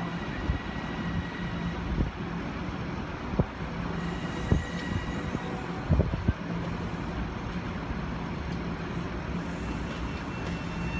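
Metro-North electric commuter train moving slowly along the track, a steady rumble and hum with a few sharp knocks of wheels over rail joints and switches.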